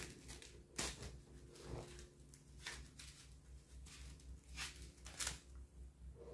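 Faint rustling and crinkling of thin plastic wrapping as sandals are pulled out of it, in short bursts about once a second.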